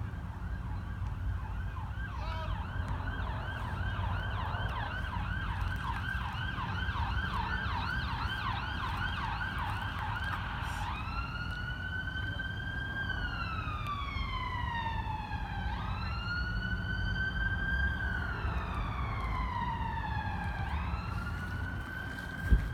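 Emergency vehicle siren sounding a fast yelp, then switching about eleven seconds in to a slow wail that rises sharply and falls away over several seconds, repeating. A steady low traffic rumble runs underneath, and a brief thump comes near the end.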